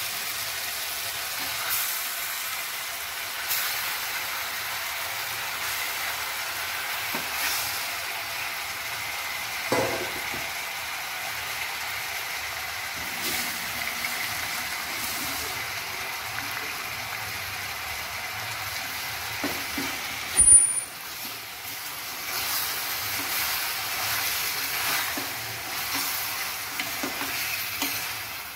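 Marinated chicken sizzling in hot oil with onion and tomato in a steel pressure cooker, a steady hiss. A steel ladle stirring scrapes and knocks against the pot now and then, with one sharp metal clank about two-thirds of the way through as the loudest sound.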